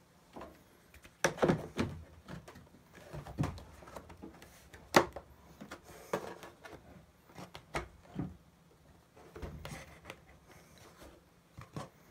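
Irregular knocks, taps and rubbing from an 8-inch mid-bass speaker being handled and test-fitted into a car door's speaker opening. The sharpest clunk comes about five seconds in.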